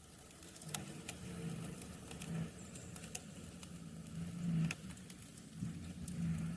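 Scattered light taps and clicks over the low, swelling rumble of a passing road vehicle.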